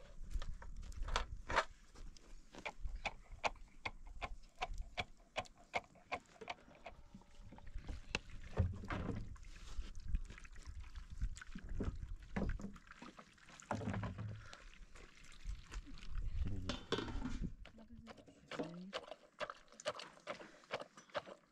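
A wooden pestle pounding in a metal mortar, giving a long run of irregular sharp knocks with some heavier thuds among them.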